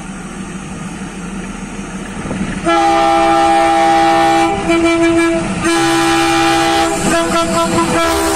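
EMD diesel locomotive approaching with its engine rumbling, then sounding its horn a little under three seconds in: a long blast, a short one, and a third long blast still sounding at the end.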